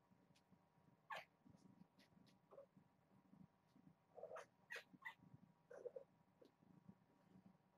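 Faint short cat calls, two brief ones about four and six seconds in, among scattered light clicks and rustles.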